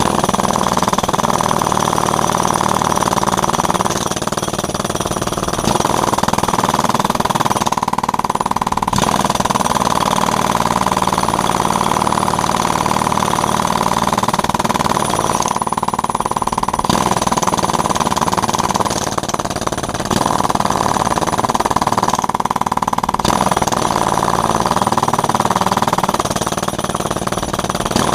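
A jackhammer hammering into fiber-reinforced concrete, running almost without pause and easing off briefly a few times.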